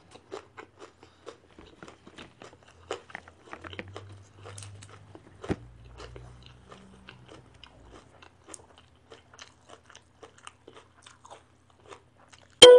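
A person chewing close to the microphone on grilled Isan sausage and raw greens, with many small wet clicks and crunches. A loud, piano-like music sting cuts in right at the end.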